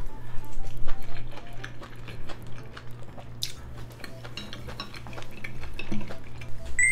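Close-miked chewing of chewy grilled pork large intestine (makchang), with small clicks of wooden chopsticks against food and the grill tray.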